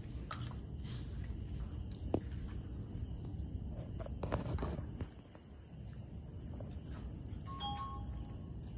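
Night crickets trilling in a steady chorus, with a few faint knocks.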